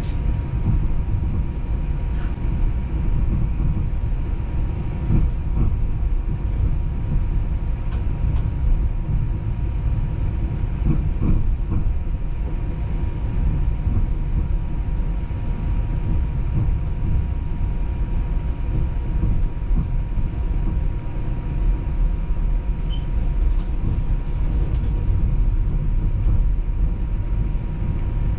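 TTC Flexity Outlook streetcar running on its rails: a steady low rumble with a thin steady hum above it and a few faint clicks.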